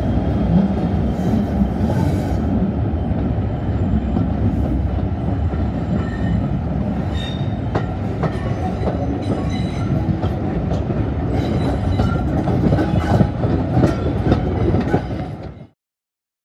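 Hastings Unit 1001 diesel-electric multiple unit on the move, heard from its window: a steady low rumble, with wheels clicking over rail joints from about halfway through. The sound cuts off abruptly near the end.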